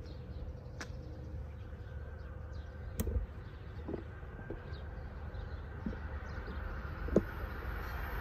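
Faint outdoor ambience: scattered high chirps over a low steady rumble of wind or distant traffic, with a few soft clicks. A faint steady whine sets in about halfway through.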